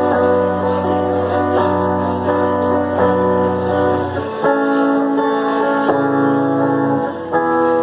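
Amplified guitar playing held chords in a live solo performance, the chord changing every second or two; the low notes drop out about four seconds in.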